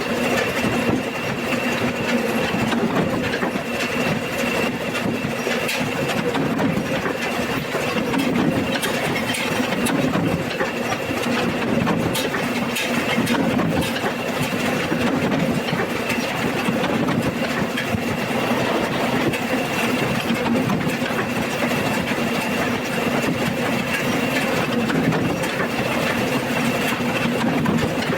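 Paper-cutting machine running steadily: a constant mechanical hum under a fast, continuous clatter of ticks.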